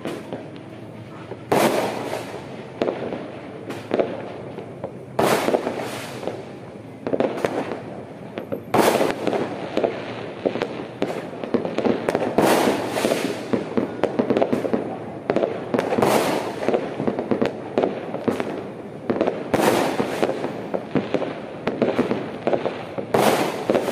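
New Year fireworks going off: a loud bang with an echoing tail every three to four seconds, amid a near-continuous patter of smaller pops and crackles.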